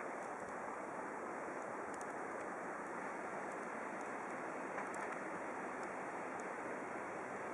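Steady, even rushing background noise of distant city traffic and wind, with no single vehicle standing out.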